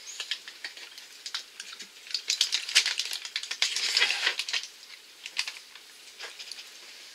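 Handling noise: a rapid run of small, sharp crackling clicks, densest from about two to four and a half seconds in.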